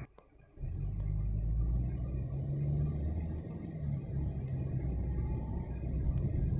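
Car cabin noise while driving: a steady low rumble of engine and tyres, cutting in after about half a second of silence at the start.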